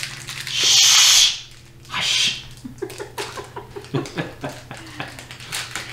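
Plastic candy wrapper being opened: a loud hiss about a second in and a shorter one after it, then small crinkles and clicks, with soft laughter.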